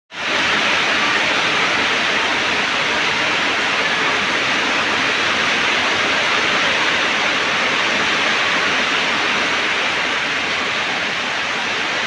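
Heavy tropical downpour: dense rain pouring down in a steady, even hiss.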